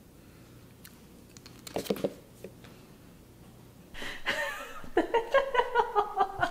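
A few light clicks or knocks, then from about two-thirds in a voice exclaiming and breaking into rhythmic laughter, several short bursts a second.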